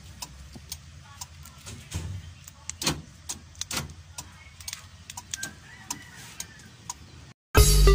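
Irregular sharp clicks and light knocks from handling the opened car door with its lock wiring and the keyless-entry remote. Loud music cuts in near the end.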